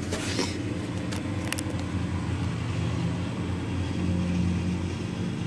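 A steady low mechanical hum with a constant background haze, and a few light clicks in the first second and a half.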